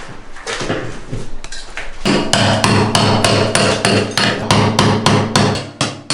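Hand hammer striking during demolition: a few scattered knocks, then from about two seconds in a fast, even run of blows, about five a second, with a ringing hum under them.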